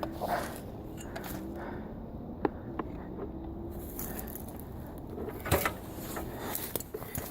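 Handling and movement noise: faint rustling with a few scattered small clicks and knocks, the loudest a little over five seconds in, over a steady low background.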